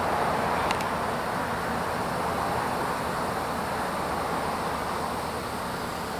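Steady rushing background noise with no distinct events, apart from a faint click a little under a second in.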